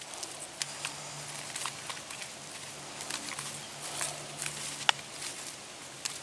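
Scattered light clicks and scrapes of fencing wire and hand tools being worked, with one sharper click about five seconds in, over a faint low hum that comes and goes.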